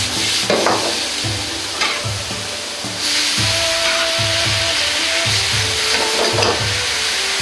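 Sliced bamboo shoots sizzling and steaming in a hot wok over a gas flame, just after Shaoxing rice wine and soy sauce have gone in. A metal ladle stirs and scrapes them around the pan. The sizzle grows stronger about three seconds in.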